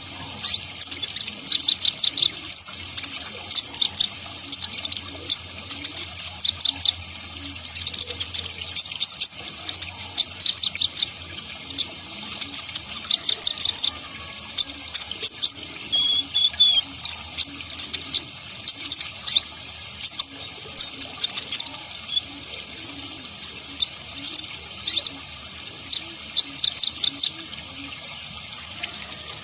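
Kolibri ninja sunbird calling: rapid high-pitched chirps in short bursts of several notes, repeated every second or two, over a steady hiss like running water.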